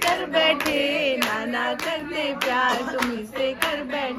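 Singing accompanied by steady hand clapping in time, a little under two claps a second.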